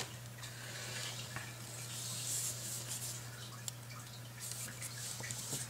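Faint handling noise of small circuit boards and component leads being worked by hand: soft rustling swells with scattered small clicks, over a steady low electrical hum.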